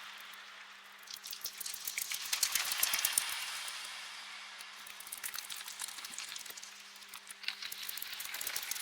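A swarm of bats in a cave: dense high squeaks, chirps and wing flutter, swelling about two seconds in and again near the end, over a faint steady low hum.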